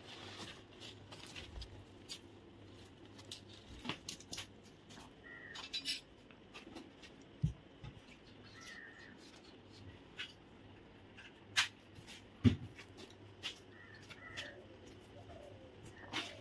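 A cat drinking milk from a bowl with a metal spoon in it: scattered soft clicks and a few sharper knocks, with a few faint short high calls now and then.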